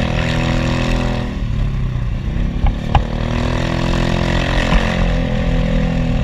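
Motor scooter engine heard from the rider's seat while riding. The engine note falls and rises as the throttle is eased and opened, with a couple of sharp knocks about three seconds in.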